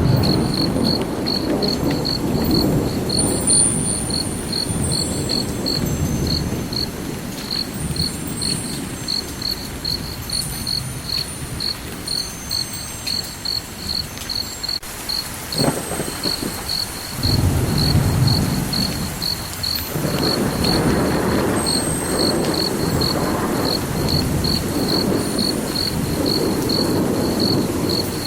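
A cricket chirping steadily, about two short high-pitched chirps a second, over a low rumble that swells and fades.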